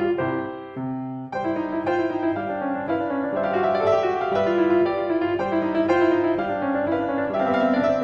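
Background piano music: chords and a melody played at an even pace.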